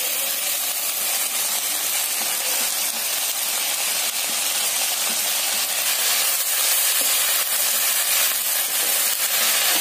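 Steady sizzle of onions and tomatoes frying in oil in a pan as chopped sorrel (chukka) leaves are added and stirred in.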